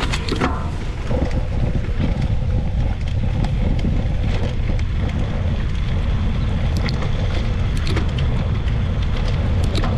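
Wind buffeting the microphone: a loud, steady low rumble, with a few faint clicks.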